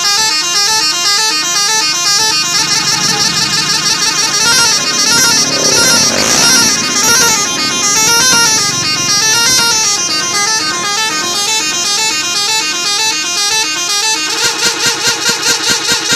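Telolet musical multi-tone horn playing a rapid, warbling up-and-down melody. Near the end it switches to a fast, even pulsing pattern.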